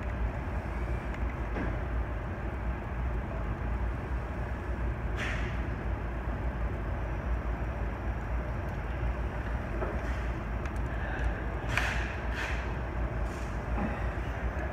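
Steady low background rumble, with a few short clicks and scrapes of a hex driver turning the clamp screw on a bicycle twist shifter and brake lever: one about five seconds in, and a cluster near the end.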